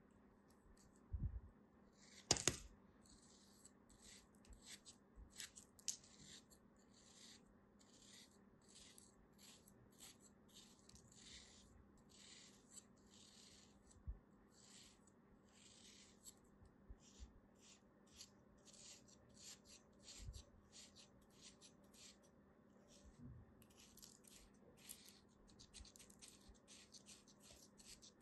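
Scissor blades slicing into a packed block of kinetic sand: a string of faint, crisp crunches, irregular, about one or two a second, with a sharper one a couple of seconds in.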